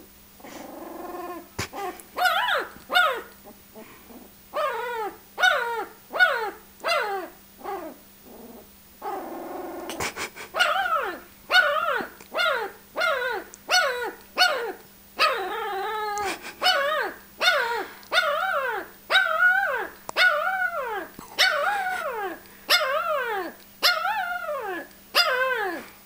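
A ten-day-old Shar-pei puppy giving a long run of short, high cries, each falling in pitch, about one and a half a second, with a rough breathy sound between them once or twice.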